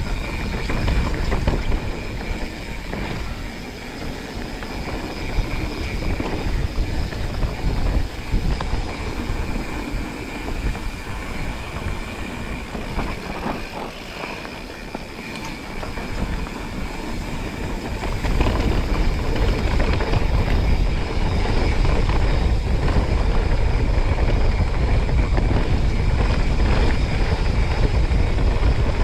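Mountain bike rolling down a dirt trail: wind rumbling on the rider's camera microphone over the rattle and knocks of the bike on rough ground. The rumble grows heavier and louder about two-thirds of the way through.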